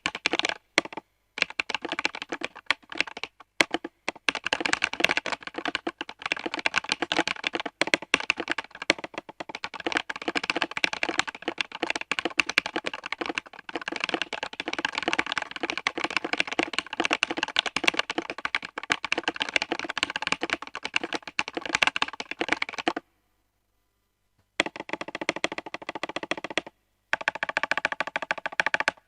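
Fast typing on a Redragon K630 mechanical keyboard with KTT Kang White linear switches lubed with Krytox 205g0, foam-dampened, with SA-profile keycaps: a rapid, continuous stream of keystrokes. The typing stops for about a second and a half near the end, then resumes with one more brief pause.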